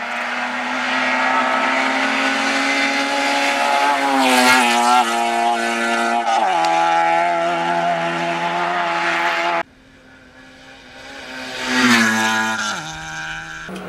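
Hillclimb race car's engine at high revs, held steady and then dropping in pitch in two steps. The sound cuts off suddenly near ten seconds in, then the engine rises to a loud peak and falls in pitch again.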